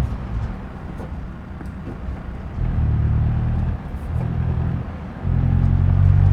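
An old Ford's engine running, rough and low between three loud stretches of steady running as the gas pedal is pumped, the last one starting a little past the middle.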